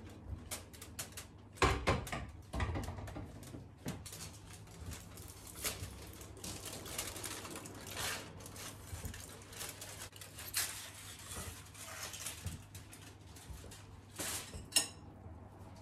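Aluminium foil crinkling and rustling as it is peeled off a covered pot and crumpled, amid clinks and knocks of cookware being handled, loudest about two seconds in and again near the end.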